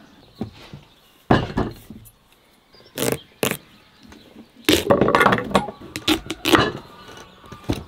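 Large knife cutting through a whole hard-skinned pumpkin on a wooden board: the rind gives way with a sharp crack about a second in and two more near the middle, then a couple of seconds of dense crunching and cracking as the pumpkin splits open.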